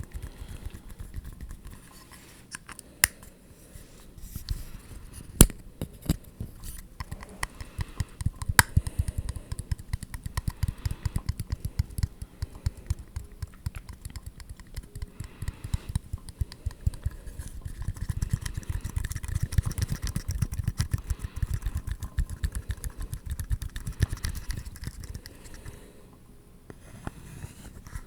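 ASMR tapping and scratching on objects: a few sharp separate taps at first, then a long run of rapid, dense tapping that eases off near the end.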